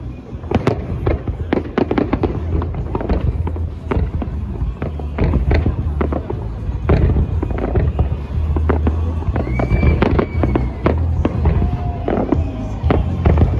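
Aerial firework shells bursting in quick succession: a dense, continuous run of sharp bangs and crackles over a steady low rumble.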